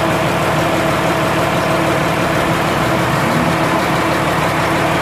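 Isuzu 6HF1 inline-six diesel engine idling steadily, heard from beneath the truck. It is running after a fresh oil and filter change so the drain plug and new filter can be checked for leaks.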